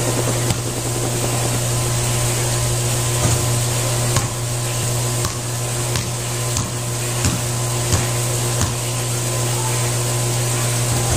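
Basketball bouncing on a hard outdoor court as a player dribbles, sharp single thuds coming irregularly about a second apart. A steady droning hum runs underneath.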